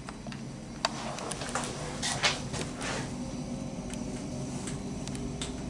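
Manual doors of an Otis hydraulic service lift being handled: scattered clicks and knocks, the sharpest about a second in and a cluster around two to three seconds in, over a steady low hum.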